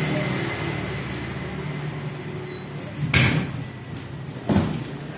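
Two knocks from handling: a sharp one with a brief rattle about three seconds in, and a shorter one about a second and a half later, over a low steady background hum.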